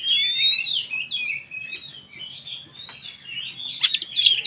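Oriental magpie-robin (kacer) singing a continuous, varied song of whistles and warbles, opening with a rising whistle, with a quick run of sharp clicking notes near the end.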